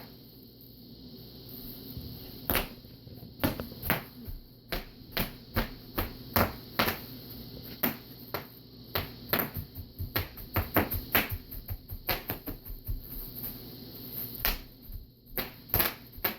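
Bubble wrap being popped one bubble at a time: sharp, irregular pops, starting about two and a half seconds in and coming one to three a second.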